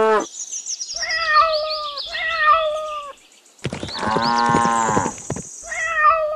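Kitten meowing: three short, high, slightly falling mews about a second apart, with a longer, lower call in the middle. A few high falling whistle tones come at the start.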